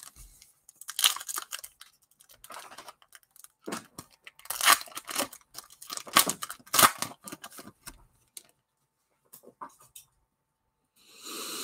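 Plastic wrapper of a Prizm basketball card pack being torn open and crinkled: a run of irregular crackles, loudest in the middle, with softer light ticks afterwards as the cards come out and are handled.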